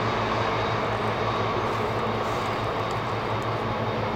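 Train running past along the valley: a steady rumble of wheels on track with a low hum under it.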